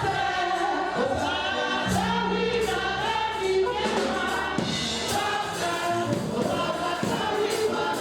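A choir singing gospel music with musical accompaniment.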